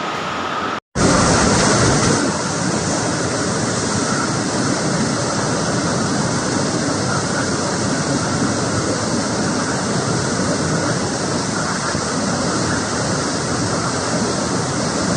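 Steady rushing noise of a tropical cyclone's storm, cutting in abruptly after a brief silence about a second in and then holding loud and even.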